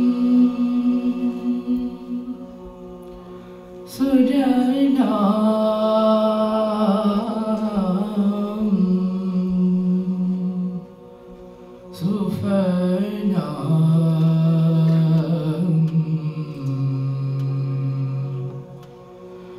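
All-male a cappella group singing a slow South Asian song: a lead voice winds a melody over long chords held by the other singers. The music swells with new phrases about four and twelve seconds in, with quieter held notes just before each.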